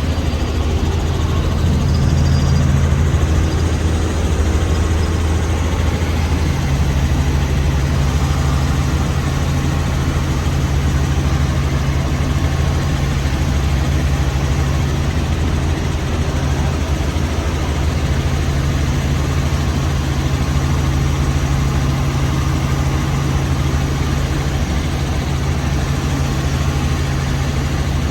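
Helicopter engine and rotors running steadily, heard from inside the cabin: a constant low drone with a steady hiss over it.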